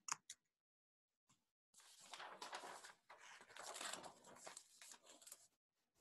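Near silence: a few faint computer mouse clicks at the start, then a faint, uneven rustling noise for about three and a half seconds.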